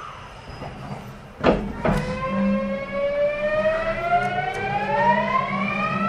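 Kintetsu 9020 series train's Mitsubishi VVVF inverter traction motors starting up: two knocks about a second and a half in, then a whine of several tones rising steadily in pitch as the train pulls away and accelerates.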